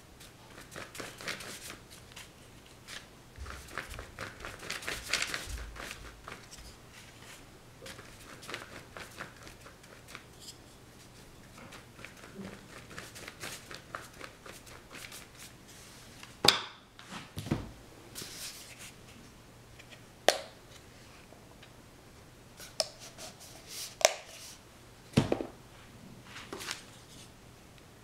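Quick scratchy strokes and rustling on paper during painting, densest in the first few seconds, with handling noises and several sharp knocks and taps in the second half.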